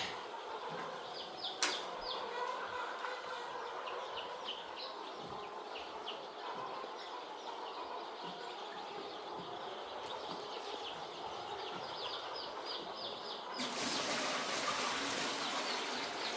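A flock of young broiler chicks peeping continuously, many short high chirps overlapping. There is one sharp click about a second and a half in, and a loud, steady hiss joins about three seconds before the end.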